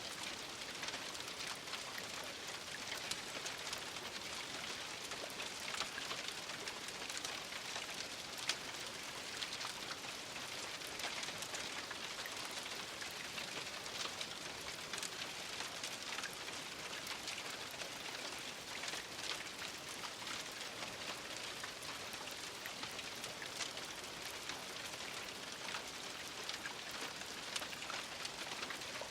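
Steady rain falling, an even hiss dotted with the sharp ticks of individual drops hitting a surface.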